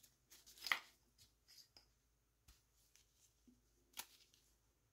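Faint rubbing of a dry cloth patch on a brass cleaning rod sliding through a Browning Buck Mark .22 pistol barrel: one brief scraping swish under a second in, a few tiny ticks, and a single light metal click near the end; otherwise near silence.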